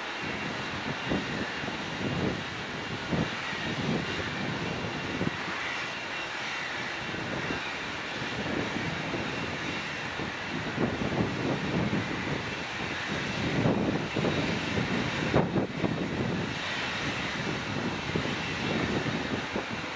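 Jet engine noise from a Boeing 777 freighter's twin GE90 turbofans as it moves along the runway: a continuous rushing noise that swells unevenly in the low end.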